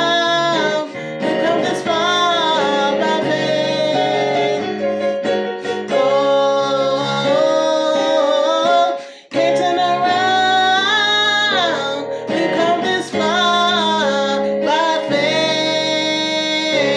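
A woman singing a slow, sustained vocal line, accompanying herself on a keyboard, with one brief pause about nine seconds in.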